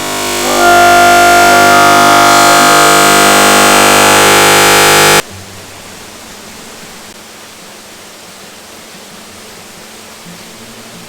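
A loud, sustained musical chord of many held tones swells in and cuts off abruptly about five seconds in. After it comes the steady rushing noise of the waterfall.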